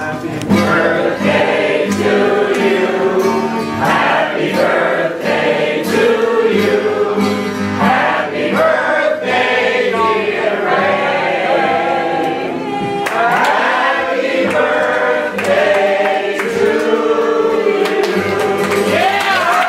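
A man sings to his own acoustic guitar while a group of voices sings along.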